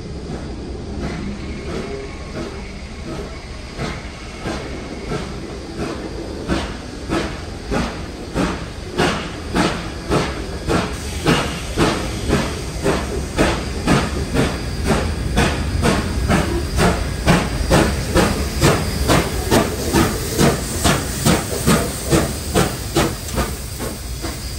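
Steam locomotives 3801 and 3526 running tender-first past at close range, with a steady hiss of steam. Their exhaust beats come faster, from about one to about two a second, and grow louder as they draw near.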